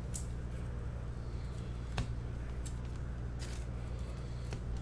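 Faint rustling and a few light clicks of trading cards being handled and sorted by hand, over a steady low hum.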